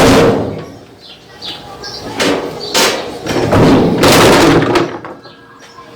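A loud knock, then scraping and clattering in two bouts as a washing machine's agitator is pried and pulled loose from its splined drive shaft.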